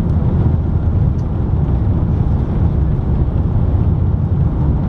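Steady jet airliner cabin noise aboard an Airbus A330-200: a loud, even low rumble of the engines and airflow with a fainter hiss above it.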